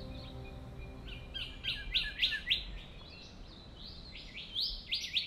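Birds singing: runs of quick, high chirps and short whistled notes, densest about two seconds in and again near the end. The last of some soft background music fades out at the start.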